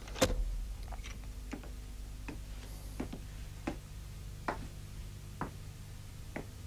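A sharp knock, then footsteps on a hard floor: single clicks about once every three-quarters of a second, over a low steady hum.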